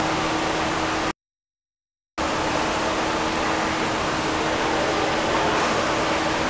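Steady hiss of background noise with a low, steady hum under it, cutting out to total silence for about a second near the start.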